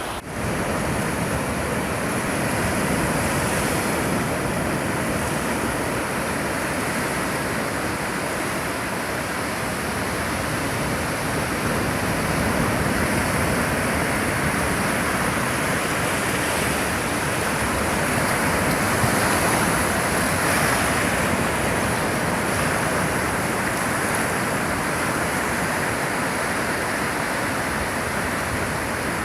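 Surf washing onto a sandy beach: a continuous rush of breaking waves that swells and eases gently in loudness.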